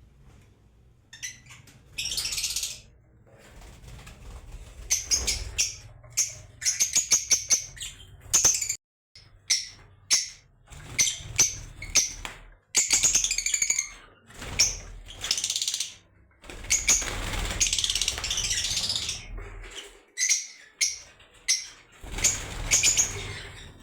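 Lovebirds chirping and screeching in bursts of rapid, shrill, high calls, some coming in quick trains of several calls, with brief breaks between bursts.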